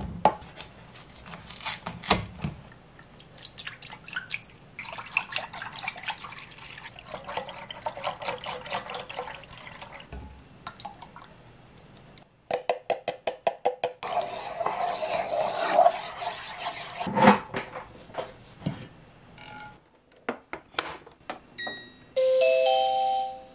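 Milk and drinkable yogurt being poured into an electric rice cooker's inner pot, with clicks and knocks from containers being handled. Near the end the IH rice cooker plays a short electronic jingle of stepped tones.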